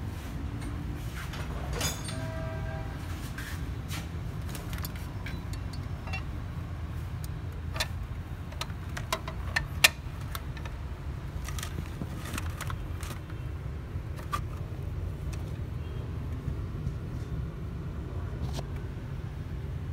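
Scattered metallic clicks and taps of hands and tools on the exposed camshafts and timing chain of a BMW M62 V8, with one sharper knock about ten seconds in, over a steady low rumble.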